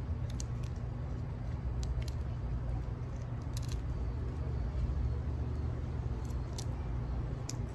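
Steady low background rumble, with a few faint sharp clicks and crackles as shrimp shells are peeled by hand.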